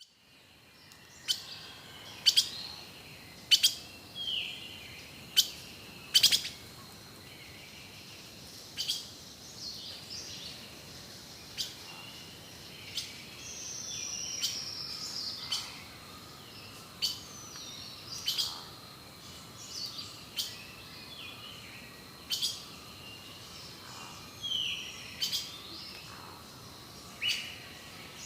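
Wild birds calling in a forest: many short, sharp chips at irregular intervals, mixed with a few quick falling whistles, over a faint steady high-pitched hum.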